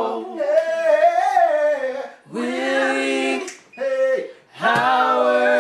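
Gospel singers' voices singing a cappella in harmony, holding long chords with vibrato, four sustained phrases broken by short breaths.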